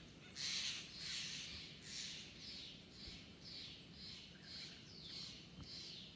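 Wild birds singing in a forest: a run of short, high, downward-slurred notes about two a second, with a louder, rougher call about half a second in.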